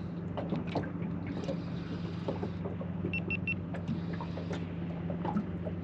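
A boat's motor hums steadily, with scattered small clicks and knocks of handling. A little over three seconds in, an action camera gives three quick high beeps.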